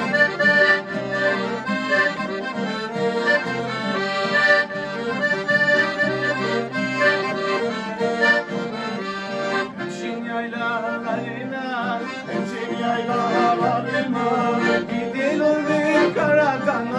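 Two piano accordions playing a Black Sea folk tune in an instrumental break between sung verses, with an acoustic guitar accompanying.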